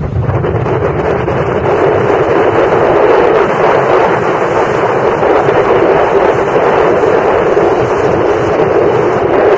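Steady wind rushing over the microphone of a camera carried on a moving motorcycle, mixed with the motorcycle's engine and road noise.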